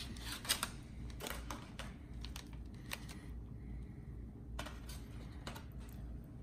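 Scattered light clicks and crinkles from a knife and fork working slices of smoked bologna on aluminium foil over a cutting board.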